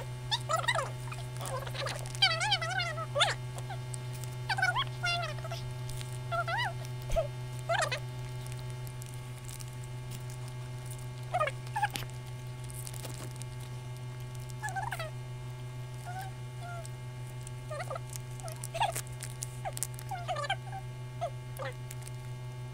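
Short, high-pitched vocal murmurs and hums made with food in the mouth, coming and going and busiest in the first several seconds, over a steady electrical hum.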